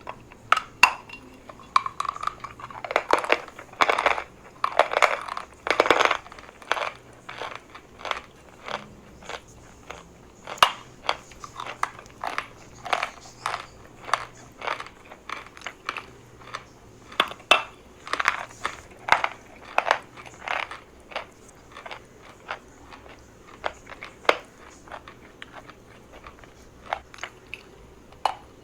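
A person biting and chewing pieces of dry chalk close to the microphone: a long run of sharp crunches, with dense chewing in the first several seconds and then single crunches about every half second to a second.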